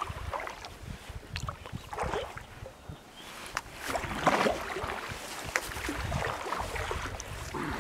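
Paddle strokes in calm lake water: irregular soft splashes and drips, the strongest about four seconds in.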